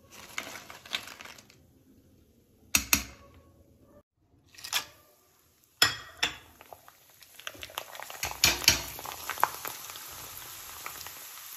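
A wire strainer clinking and crisp fried potato chips rustling, then a few sharp knocks, and from about two-thirds of the way in potato slices frying in hot oil: a steady sizzle with spattering crackles.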